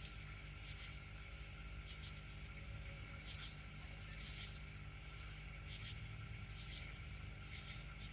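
Night insects, crickets or katydids, chirping in short repeated high-pitched pulses over a steady low hum.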